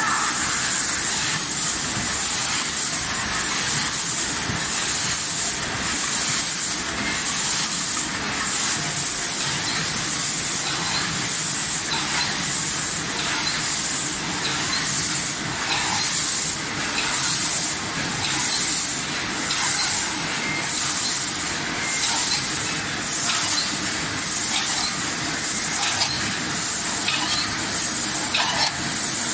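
Food packaging line machinery running, a steady hiss that pulses about once a second with the machine cycle.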